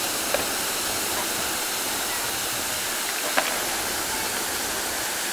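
Fountain water spraying and splashing into its basin, a steady rushing hiss, with two brief ticks, one just after the start and one a little past the middle.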